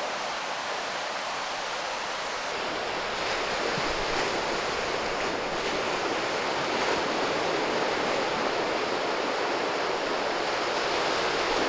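Sea surf washing onto a sandy beach: a steady rush of breaking waves.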